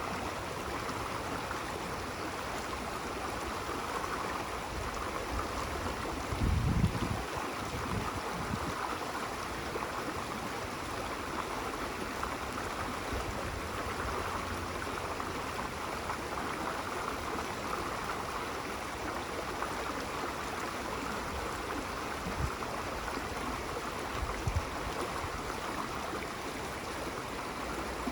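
Running water flowing steadily, an even rushing sound. Low thumps break in briefly about seven seconds in and again near the end.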